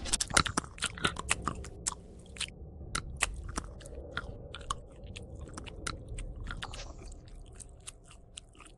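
A creature chewing and crunching food, with irregular crunchy clicks. The crunches come thickest in the first couple of seconds and thin out later.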